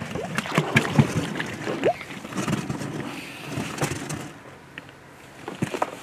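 Irregular knocks and clatter in a small boat, with one short rising squeak about two seconds in, dying down after about four seconds.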